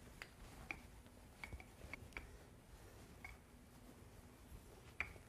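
Near silence broken by faint, irregular clicks and taps from a wooden rolling pin rolling out pizza dough on a wooden cutting board, the loudest tap near the end.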